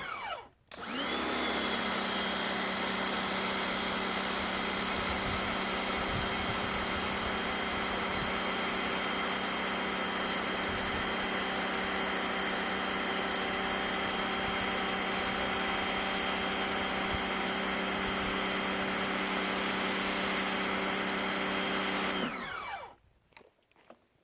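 Electric pressure washer's motor and pump running steadily while driving a surface cleaner over concrete. It winds down and stops briefly right at the start, starts again, and winds down to a stop near the end, as the trigger is released.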